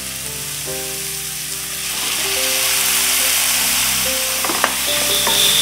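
Chopped onions and tomatoes sizzling in hot oil in a kadai, with a few spatula knocks against the pan near the end. Calm background music with slow held notes plays over it.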